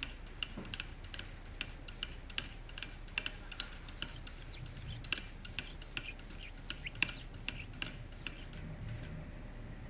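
Teaspoon stirring in a china cup, clinking against its sides about three times a second with a light ring, stopping about nine seconds in.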